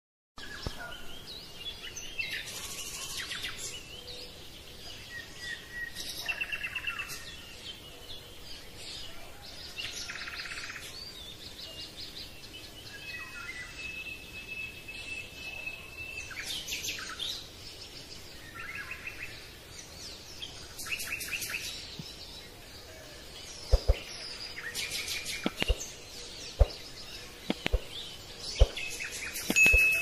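Birds chirping and singing, with rapid trills and short whistled notes throughout. Several sharp knocks in the last seven seconds stand out louder than the birdsong.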